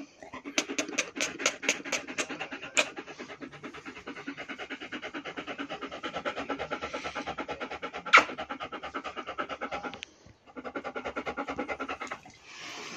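Dog panting fast and steadily close to the microphone, stopping briefly about ten seconds in and then starting again. Over it come a few short smacking clicks in the first three seconds and one louder smack about eight seconds in.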